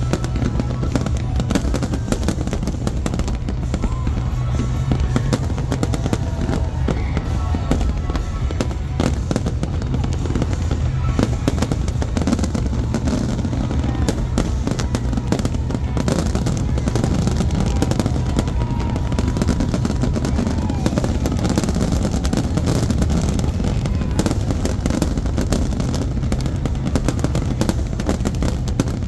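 Fireworks display going off continuously: a dense run of rapid bangs and crackling from bursting shells over a steady low rumble.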